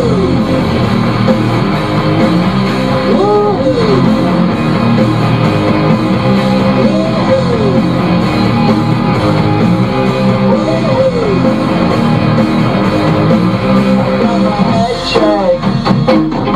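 Rock song with guitar and a singing voice, playing over the car radio.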